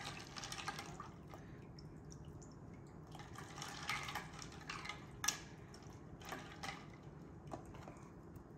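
A hand stirring through a pot of ice water: water splashing and ice cubes knocking about in a few short spells, with one sharp click about five seconds in.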